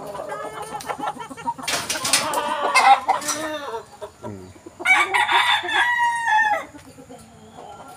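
Boston Roundhead gamecocks crowing: two crows, one about two seconds in and a longer, even one about five seconds in that drops in pitch at its end.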